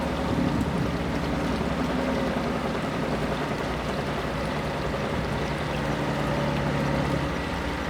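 Steady rush of flowing river water, with a faint low hum under it.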